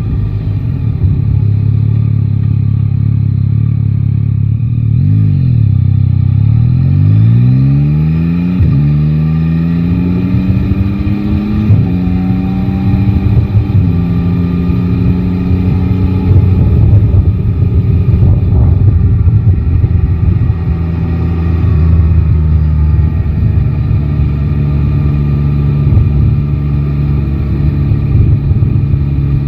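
Yamaha Tracer 9 GT's 890 cc inline three-cylinder engine heard from the rider's seat: running steadily, dipping briefly, then accelerating up through the gears with three upshifts a few seconds apart before settling into a steady cruise.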